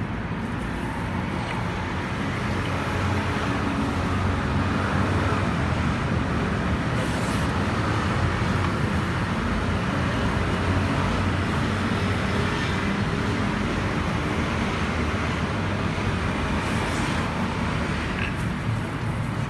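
Steady road traffic noise, a continuous low hum of passing vehicles.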